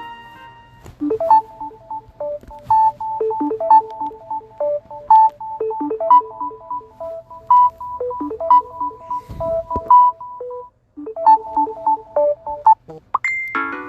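Samsung Galaxy S21 ringtone: a short electronic melody of quick, evenly spaced notes repeating in a loop. It breaks off for a moment about eleven seconds in, resumes, and ends in a brief rising sweep near the end.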